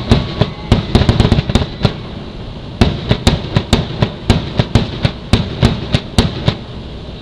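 Fireworks going off in rapid, irregular volleys of sharp bangs: a run of reports, a short lull, then another run that stops about six and a half seconds in.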